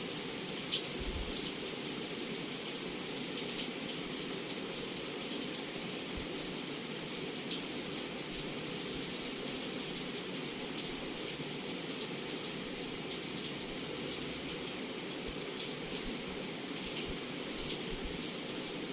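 Heavy rain falling steadily against a window: an even hiss broken by scattered sharp drop ticks, with one louder tick about three-quarters of the way through.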